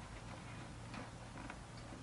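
Faint scattered ticks and rustling from hands working on a motorcycle helmet's liner and cheek pads, over a low steady hum.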